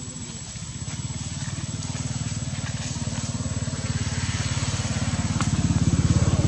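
A small engine running with a fast, even pulse, growing steadily louder.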